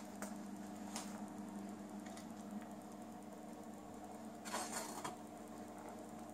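Quiet room tone with a steady low hum, a few faint clicks, and a brief rustle or scrape about four and a half seconds in.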